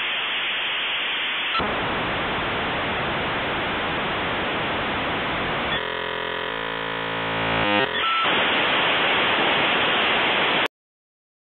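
Dial-up modem handshaking over a phone line: a loud steady hiss of the data negotiation, broken about six seconds in by a couple of seconds of buzzing layered tones, then hiss again until it cuts off abruptly near the end.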